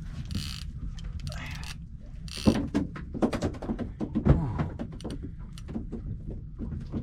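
Fishing reel being wound in against a hooked fish, with a run of quick mechanical clicks in the middle, over a steady low hum.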